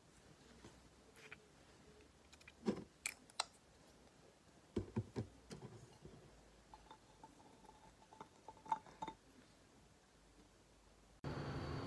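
Glass perfume bottles and a cap being picked up and set down on a desk: a few light clicks and knocks, in small clusters. Near the end a steady hum starts abruptly.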